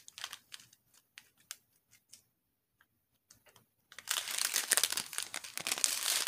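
Clear plastic bags of diamond painting drills crinkling as they are handled: a few light crackles, a short near-silent pause, then steady dense crinkling from about four seconds in.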